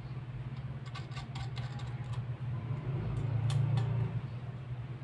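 Small metallic clicks and taps of a chrome wire dish rack's parts as it is handled and fitted together, in a cluster about a second in and again a few times past the middle, over a steady low hum.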